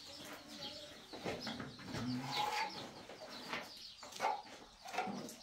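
Chickens clucking in short, scattered calls, quieter than the talk around them.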